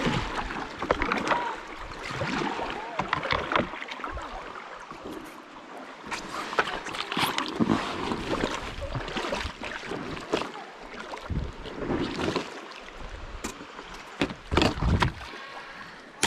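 Paddle strokes in river water: irregular dips and splashes, with now and then a sharp knock, and some wind on the microphone.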